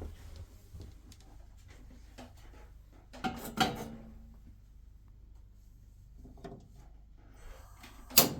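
Scattered knocks and clicks of things being handled in a small room, with a cluster of louder knocks about three seconds in and one sharp click near the end.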